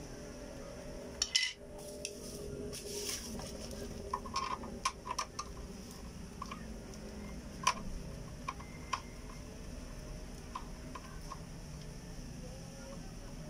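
Irregular clicks and taps of hard plastic as a refrigerator inverter circuit board and its black plastic housing are handled and fitted together, with the loudest knocks about a second in and near the middle.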